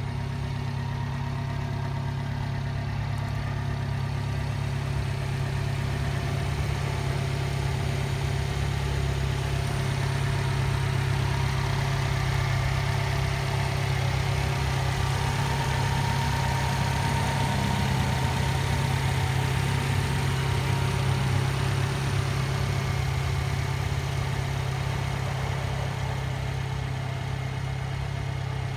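Subaru Sambar kei truck's engine idling steadily, a little louder in the middle.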